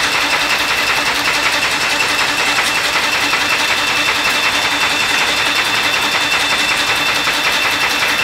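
Workshop machinery running steadily: a loud, fast, even clatter with a constant high whine.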